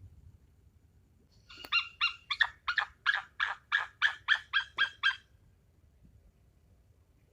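A rapid series of about a dozen short, high-pitched animal calls, about three a second, lasting some three and a half seconds.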